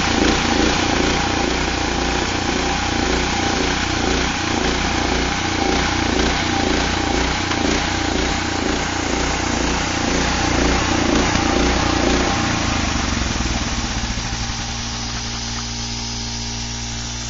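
Engine-driven portable band sawmill running with a rhythmic throb, its blade cutting through a log; about twelve seconds in the throb fades and the sound drops to a smoother, quieter running.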